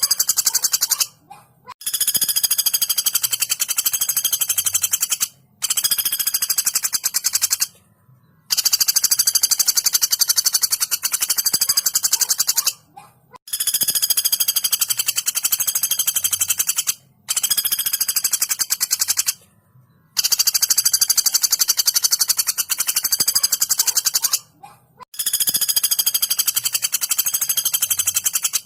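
Female pelatuk bawang (common flameback woodpecker) giving long, fast, tightly spaced rattling calls, about eight runs of two to four seconds each separated by brief pauses.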